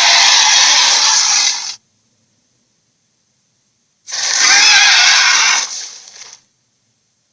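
Dragon sound effects: a harsh, rasping sound that cuts off abruptly about two seconds in, then after a silence a second rasping sound with a wavering pitch, lasting under two seconds and trailing off.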